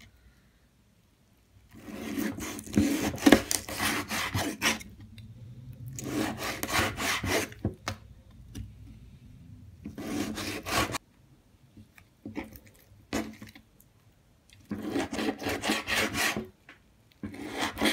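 Kitchen knife cutting through raw fatty pork on a plastic cutting board: bursts of quick back-and-forth slicing strokes with the blade scraping the board, each lasting one to three seconds, with short pauses between them.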